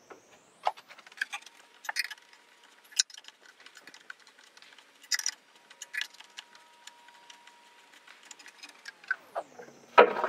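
Screwdriver and small wrench clicking and scraping on the nut and screw that fasten a plastic brine-well pipe to a water softener brine tank, in scattered light metallic taps, with a louder knock near the end.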